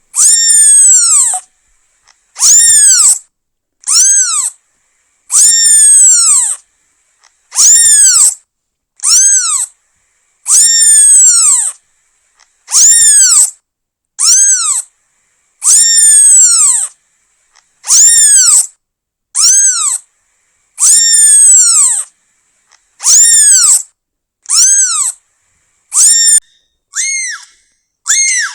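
A newborn kitten meowing over and over, calling for its mother: about twenty loud, high-pitched cries, each rising and then falling away, roughly one a second. Near the end the cries turn shorter and quicker.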